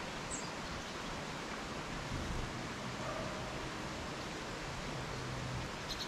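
Steady outdoor background hiss, with one faint, short, high chirp from a small bird near the start.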